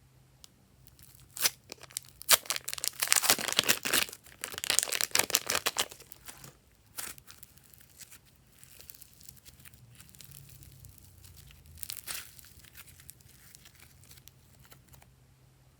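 Glossy slime being stretched and pressed by hand, making sticky crackling and tearing sounds. The sounds come in bursts, the longest in the first six seconds and a shorter one about twelve seconds in.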